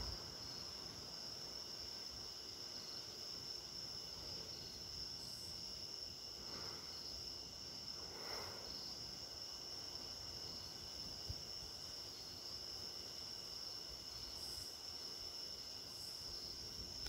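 Night insects trilling steadily in one high, even tone, with a fainter insect adding short chirps every second or two.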